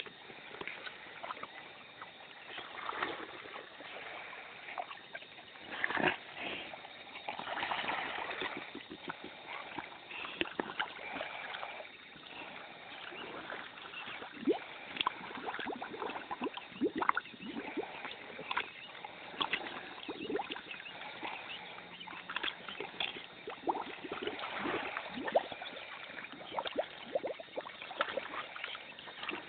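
A pig making wet sloshing and splashing sounds, with many short irregular clicks and snaps throughout.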